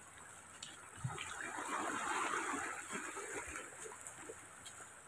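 Water surging on a rocky shore, a soft wash that swells about a second in and fades a few seconds later, with a few faint knocks.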